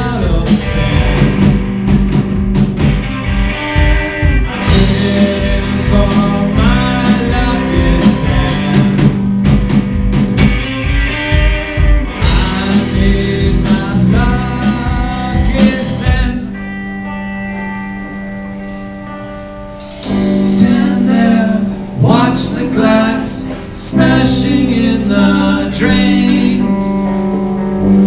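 Live band playing with a singer: electric guitars, drum kit, violin and cello. About sixteen seconds in the drums drop out for a few seconds of held notes, then the full band comes back in.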